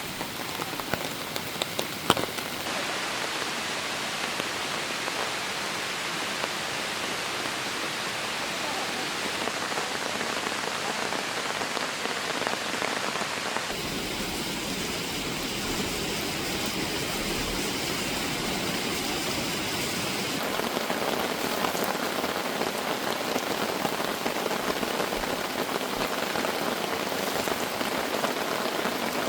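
Heavy rain from a sudden summer shower pouring down steadily, its sound changing abruptly a few times.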